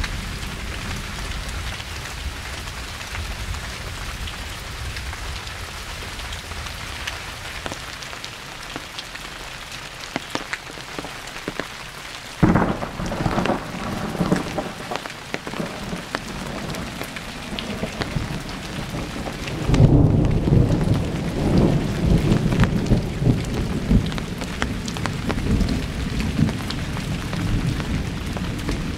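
Steady rain falling during a thunderstorm, with a sudden sharp crack of thunder about halfway through, then a loud, low rolling rumble of thunder from about two-thirds of the way in.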